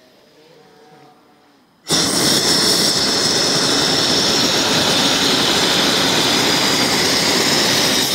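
Hot-air balloon's propane burner firing: a loud, steady roar that starts abruptly about two seconds in and holds without letting up.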